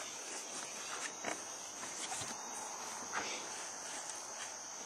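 Insects droning steadily as a high, even hum, with a few short knocks and rustles, the loudest about three seconds in, as the landing net holding a fish is handled on the boat's floor.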